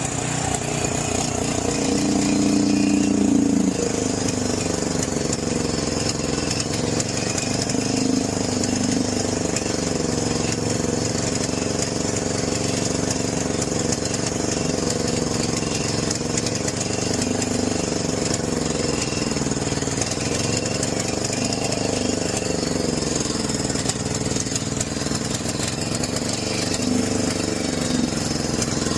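John Deere 6200 portable generator's engine running continuously at high RPM, its pitch wavering gently up and down. It is running on a cleaned but varnished original carburetor and puts out no power at the outlets, which the tech puts down to the high RPM.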